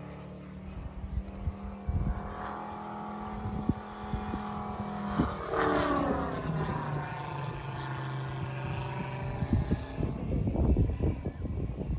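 Large-scale model Gee Bee R2's Moki 400 radial engine running at speed overhead; its drone sweeps down in pitch about six seconds in as the model passes. Low gusts of wind buffet the microphone, heaviest near the end.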